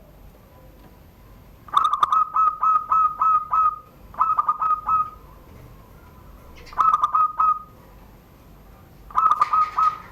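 Zebra dove (perkutut) singing its cooing song in the prized 'surung gdor' style: four phrases of quick, rolling coos, the first about eight notes long and the later ones shorter.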